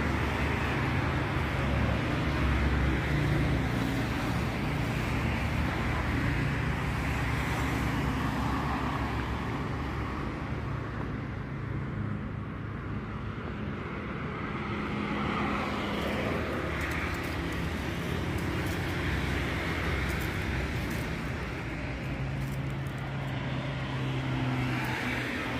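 Road traffic on the adjacent street: a continuous rumble of car engines and tyres that swells and eases as vehicles pass.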